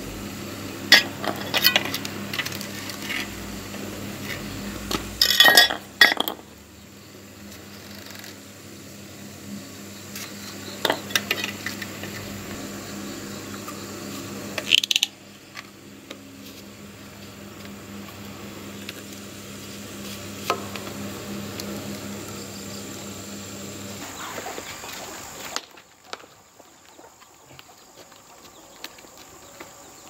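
Hard PVC pipe fittings and a plastic ball valve being handled and pushed together, giving scattered sharp clacks and knocks, with a few louder clusters. A steady low hum runs underneath and stops a few seconds before the end.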